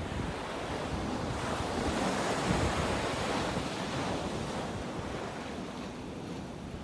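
Sea surf washing onto the shore, one wave swelling about a second and a half in and easing off again, with wind buffeting the microphone.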